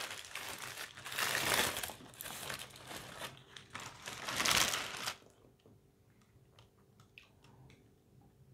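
Paper burger wrapper being crinkled and unfolded by hand, loudest twice, stopping about five seconds in; after that only a few faint small clicks.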